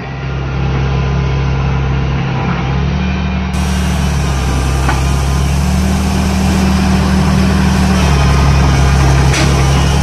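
Diesel engines of a Tata Hitachi excavator and a JCB backhoe loader running while working a cement, sand and chips mix, engine speed rising about three seconds in and dropping back about eight seconds in.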